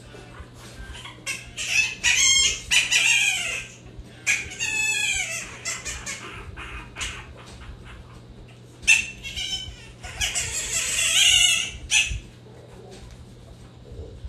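Newborn French bulldog puppies crying and squealing in shrill, wavering bouts, loudest about two seconds in and again from about nine to twelve seconds.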